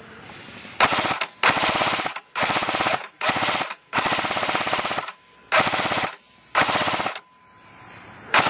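Airsoft M60 machine gun firing in rapid bursts: about seven bursts of half a second to a second each, with short pauses between, the last starting just before the end.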